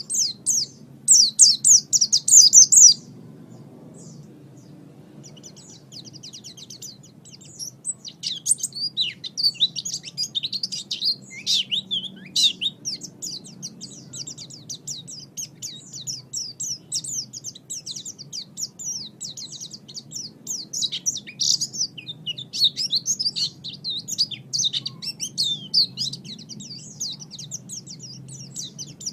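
A small songbird singing rapid, high-pitched chattering trills. A loud burst comes about a second in, then a short lull, then almost unbroken twittering.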